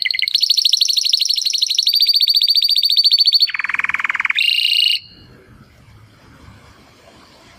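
Canary singing a series of rapid rolling trills: a long high trill of fast repeated notes, then a short lower trill and a brief high phrase, after which the song breaks off about five seconds in.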